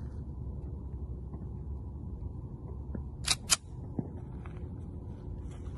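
Two sharp metallic clicks about a quarter second apart, a little past halfway, from handling a Smith & Wesson SD9VE 9 mm pistol, over a steady low background rumble. They are not gunshots.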